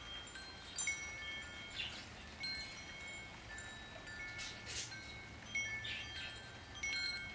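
Wind chimes ringing in a light wind, several metal tones struck at irregular moments and left to ring, with a few short chirps among them.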